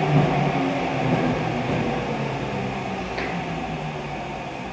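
Saitama Rapid Railway 2000 Series electric train pulling into the station, its IGBT-VVVF traction hum stepping down in pitch and fading as the train slows. A brief high squeak about three seconds in.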